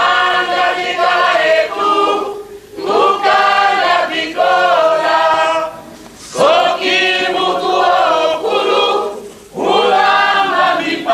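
A chorus of voices singing a traditional Angolan song together, in sustained phrases with short breaks between them.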